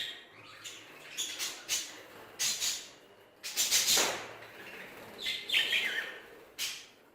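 A group of frilled Hagoromo budgerigars chattering and warbling in a string of short, irregular bursts of high calls.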